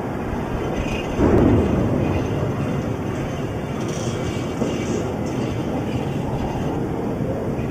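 A steady, loud rumbling noise with a louder burst about a second in that dies away over about half a second.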